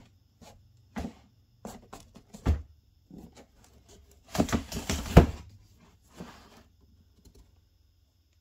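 Cardboard hat box being handled: scattered knocks and scrapes, with a dense run of scraping and rustling about four to five seconds in.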